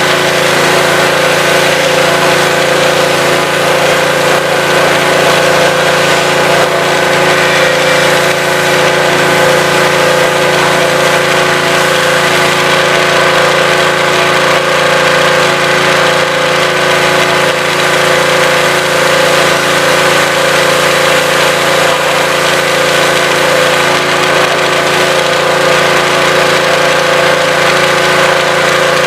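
Honda GX200 single-cylinder petrol engine of a DeWalt pressure washer running at a steady speed.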